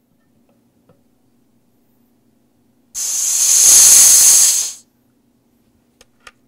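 High-pressure air venting in a loud hiss for about two seconds, then cutting off: the fill hose of a PCP air-rifle tank being bled after charging the rifle. Two small clicks follow near the end.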